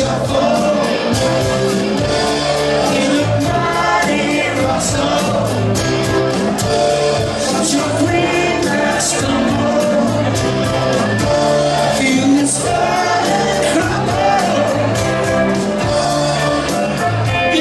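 Live rock band playing a 1970s medley: lead vocals over acoustic and electric guitars, keyboards and drums, with a steady beat.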